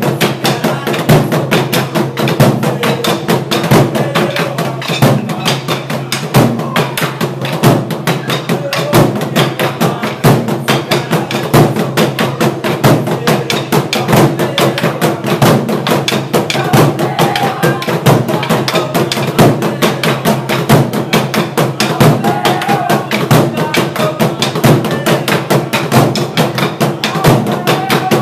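Ensemble of Burundian drums beaten with wooden sticks, keeping a fast, steady, driving rhythm of dense strikes throughout.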